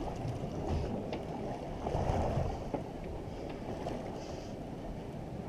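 Steady low rumble of wind and sea noise on the deck of a boat at sea, with a few faint clicks.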